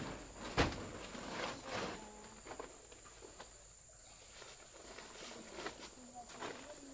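Insects trilling steadily and high-pitched in forest, with a sharp knock about half a second in and scattered rustling and handling noises.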